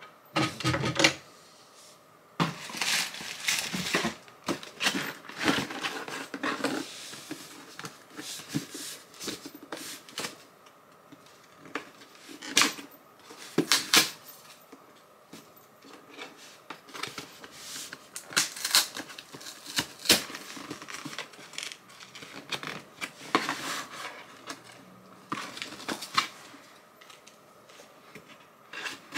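Handling a cardboard shipping box: irregular rustles, taps and knocks on the cardboard, with scissors snipping at the packing tape near the end.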